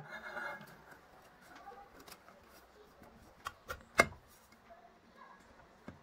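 Gloved hands handling a ceiling fan's wiring and canopy cover as it is slid up the downrod to the ceiling: faint rustling, a few light clicks, and one sharp knock about four seconds in.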